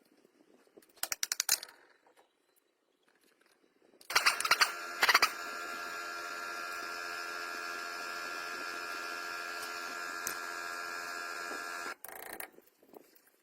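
Workshop machinery: a quick rattle of clicks, then louder clicks, then a small motor running at a steady pitch for about seven seconds before it cuts off suddenly.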